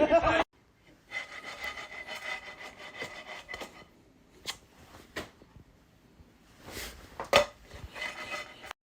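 Rubbing and scraping with a steady high squeak running through it, followed by several sharp clicks or knocks.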